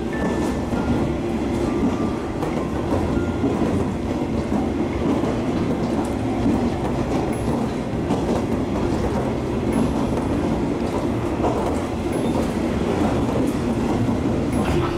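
KiHa 47 diesel railcar running, heard from inside its passenger cabin: a steady drone of engine and wheels on the rails.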